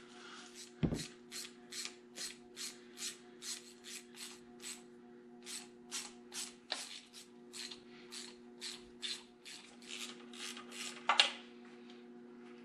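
Hand ratchet worked in quick, even strokes, about two or three a second, loosening bolts. There is a clunk about a second in and a louder knock near the end, over a steady low hum.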